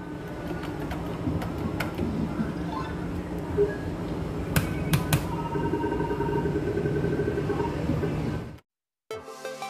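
Gaming-hall din with electronic beeps and tones from video-bingo and slot machines, and a few sharp clicks in the middle. It cuts off suddenly near the end, and electronic music starts about a second later.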